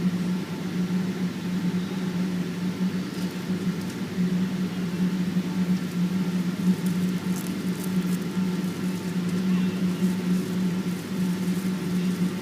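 Boeing 777-200ER cabin noise: the engines and airflow make a steady low drone, with fainter steady higher tones over it and a few light ticks near the middle.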